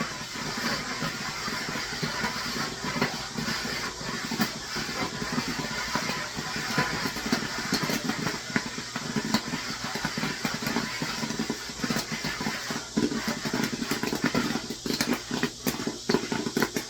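Kettle corn popping under a dome on a flattop griddle: a dense crackle of kernels bursting over a steady sizzle, the pops getting sharper and more frequent toward the end.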